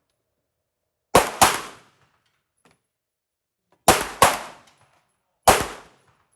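Semi-automatic pistol fire: five shots, two quick pairs then a single shot, each with a short echo.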